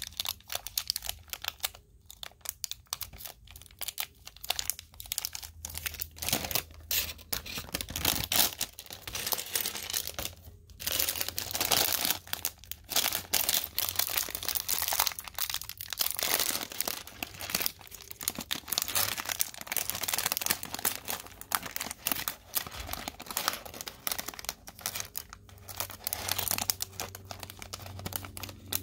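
Plastic Lego parts bags crinkling and being torn open, a dense run of crackles and clicks.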